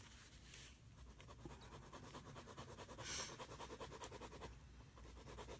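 Faint scratching of a pen sketching on paper, in a run of quick short strokes, with a brief hiss about three seconds in.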